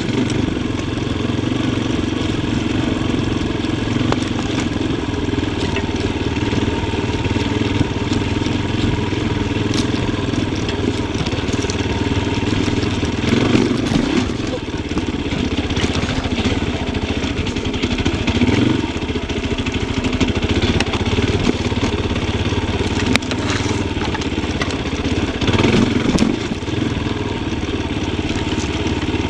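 Yamaha Tricker XG250's single-cylinder four-stroke engine running as the bike is ridden on a forest trail, the revs rising and falling with the throttle, with a few sharp knocks now and then.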